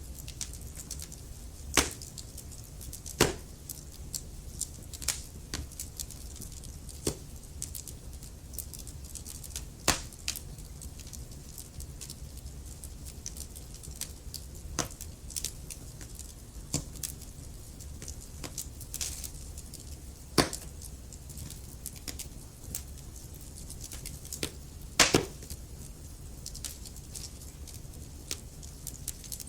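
Log fire crackling, with irregular sharp pops, the loudest a quick double pop about 25 seconds in, over a low steady rumble.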